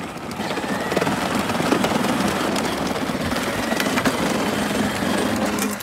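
Battery-powered ride-on toy buggy driving on asphalt: a steady rolling noise from its hard plastic wheels on the road, with a faint whine from its electric motors and gearboxes.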